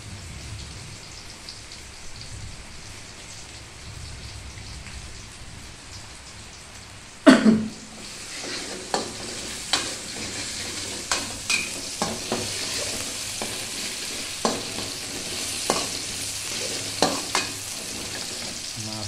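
Chili, tomato, garlic and shallot sizzling as they stir-fry in oil in a wok, with a metal spatula scraping and clacking against the pan about once a second. A single loud knock comes about seven seconds in, and the sizzle is quieter before it.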